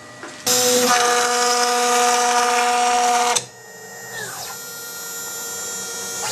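High-speed spindle of a K6100 CNC router running with a loud whirr and whine that cuts off suddenly about three seconds in. The whine then falls away as the spindle slows, and near the end it rises again as the spindle speeds back up.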